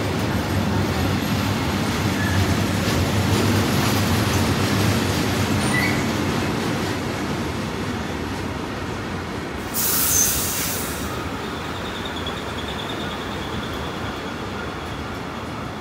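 Freight train of tank wagons behind a Newag Griffin E4DCUd electric locomotive rolling past: a steady rumble of wheels on rail, deepest for the first few seconds as the locomotive goes by. About two-thirds through comes a short burst of sharp hiss, followed by a faint thin wheel squeal.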